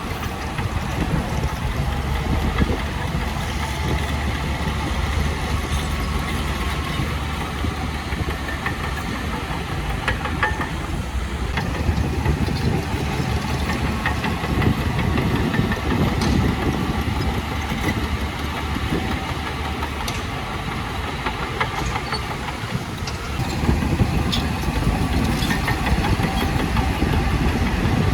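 Heavy diesel earthmoving machinery running steadily, with a few faint metallic clicks, getting somewhat louder near the end.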